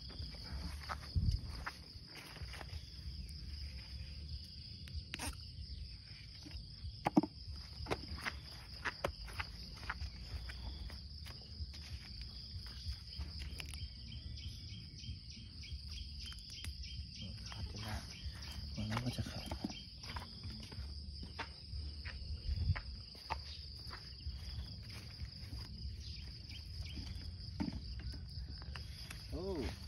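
Steady high insect trilling, with a second, lower trill joining for a few seconds midway. Scattered rustles and light clicks come from hands pulling plant shoots out of the ground and from footsteps in dry grass.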